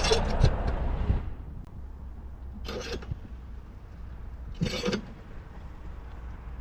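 A loud scuffing handling noise at the start, then two short rasping scrapes about two seconds apart: hand tools working steel brake line tubing, metal on metal.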